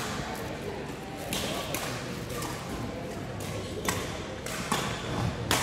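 Badminton rackets striking a shuttlecock in a rally, several sharp hits about a second apart, echoing in a large sports hall.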